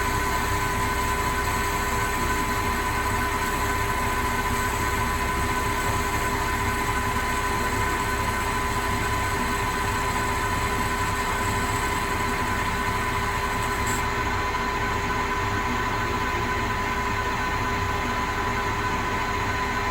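Proto-Trak CNC lathe running steadily with a constant whine while a grooving tool takes a finishing pass on the V groove of a D2 tool steel roller. The highest hiss drops away about two thirds of the way through.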